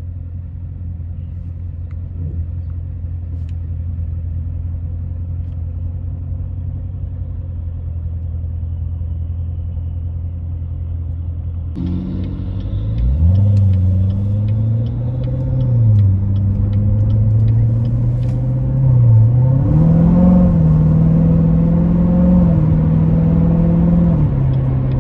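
Supercharged 6.2-litre V8 of a 2019 Corvette Z06, heard from inside the cabin: a steady low idle rumble while it waits in traffic, then about halfway through it pulls away and gets louder, the revs climbing and dropping back twice as it shifts up.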